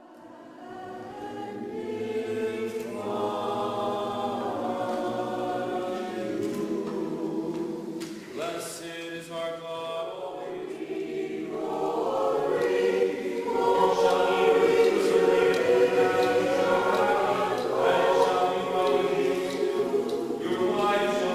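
Choral singing: several voices in harmony holding long notes, fading in at the start and swelling louder about twelve seconds in.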